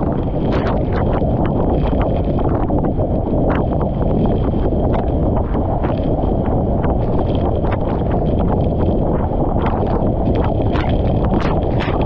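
Powerful waterfall crashing into its plunge pool: a loud, steady, deep rush of falling water, with frequent irregular sharp ticks from spray and droplets striking the microphone.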